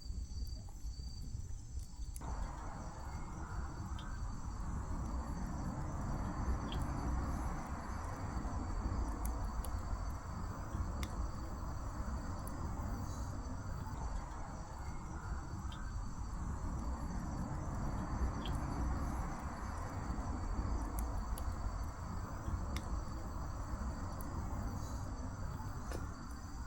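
Insects trill steadily in several high, unbroken tones over a low rumbling hiss. A faint hissing rises about two seconds in, and there are a few sharp crackles now and then.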